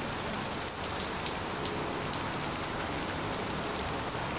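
Steady rain falling, an even hiss with many individual drops heard as sharp ticks.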